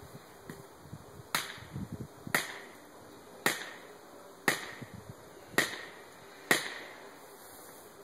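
Six hard blows about a second apart, each with a short ring: a felling wedge being driven into the saw cut of a back-leaning tree.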